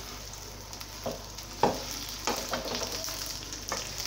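Cut okra frying in hot ghee in a non-stick kadai, sizzling steadily while it is stirred with a wooden spoon. Several knocks of the spoon against the pan, the loudest about one and a half seconds in.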